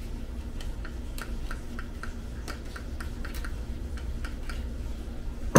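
Light metallic ticking, about three clicks a second, as a piston ring is worked onto an engine piston with a ring tool, then one sharp loud click near the end.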